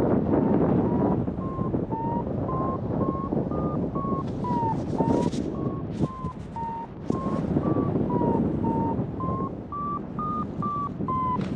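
A paragliding variometer beeping in a steady train of about two to three short beeps a second, its pitch stepping up and down as the climb rate changes: the beeping signals the glider climbing in lift. Under it, a steady rush of wind on the microphone.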